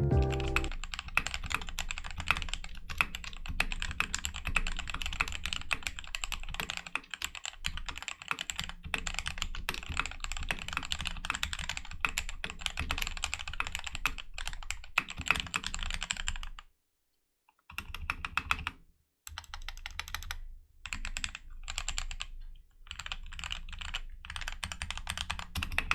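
Fast typing on an RK68 Plus mechanical keyboard fitted with Akko CS Starfish linear switches: a rapid run of key clacks with a fairly high-pitched thock. The typing breaks off for about a second two-thirds of the way through, then resumes with a few short pauses.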